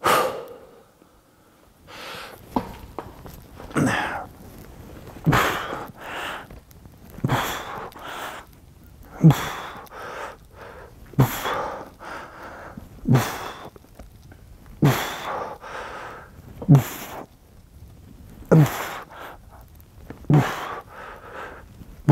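A man's forceful exhales with a short falling grunt on each rep of a seated dumbbell shoulder press with 30 kg dumbbells, about one every two seconds, around ten in all.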